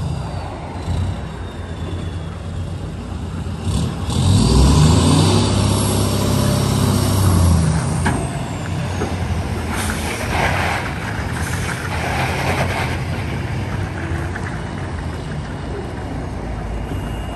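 Ford F-350's 6.7 L Power Stroke turbodiesel V8 working under load as it tows a semi trailer out of the mud; the engine revs up about four seconds in, holds for a few seconds, then eases. Bursts of hissing follow, twice.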